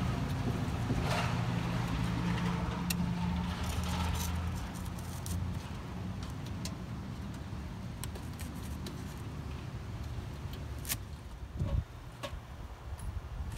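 A motor vehicle's engine running with a low steady hum that fades away about five seconds in, with scattered light clicks and knocks throughout.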